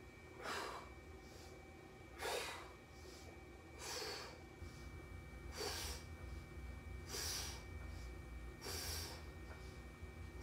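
A lifter's sharp, forceful breaths in rhythm with his barbell bench press reps: six short puffs, about one every second and a half, over a faint low hum.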